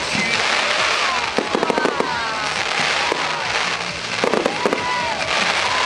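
Professional display fireworks going off: a constant dense crackle with tight volleys of rapid sharp bangs twice, about a second and a half in and again past four seconds.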